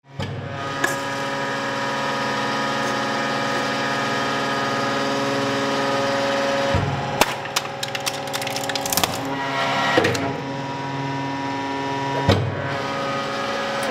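Hydraulic press running with a steady, many-toned hum while its ram crushes an aluminium soda can and a tin of smokeless tobacco. A burst of sharp cracks and pops comes about seven to ten seconds in, followed by a single knock near the end.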